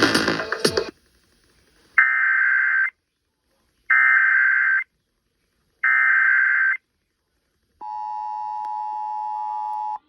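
Emergency Alert System (EAS) activation: three short buzzes of digital SAME header data, about two seconds apart. The steady two-tone attention signal starts about eight seconds in. Before that, music cuts off about a second in.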